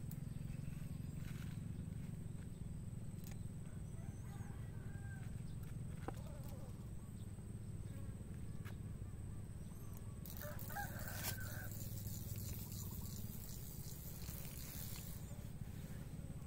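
Faint outdoor ambience: a steady low rumble with a few small chirps about four seconds in, and a rustling hiss from about ten seconds in that stops about five seconds later.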